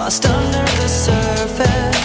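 Hip-hop music with a steady drum beat and sustained backing notes, without rapping.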